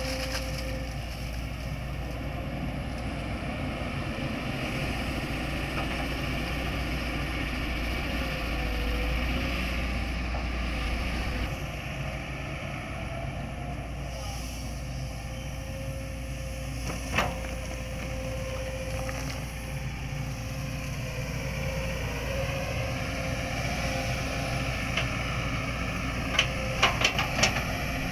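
Hitachi hydraulic excavator's diesel engine running steadily under work, with a single sharp knock partway through and a quick run of several knocks near the end.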